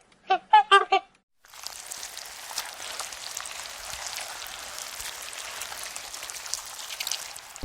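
A few short, pitched animal calls in quick succession in the first second. After a brief gap comes a steady crackling hiss of rain or running water.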